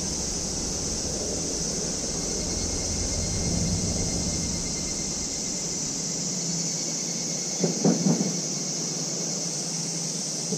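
Outdoor waterside background with a steady, high-pitched insect drone. A low rumble fills the first half and fades, and a quick cluster of three short, loud, pitched sounds comes about eight seconds in.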